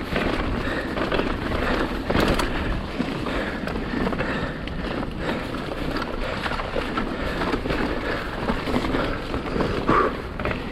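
Mountain bike descending a rough trail: tyres rolling over dirt and stones, with the bike clattering and knocking over bumps throughout.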